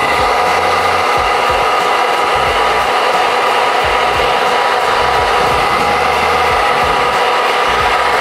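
Hand-held hair dryer running steadily on its cool setting, blowing onto the hair to set it in place: a steady rush of air with a constant motor whine.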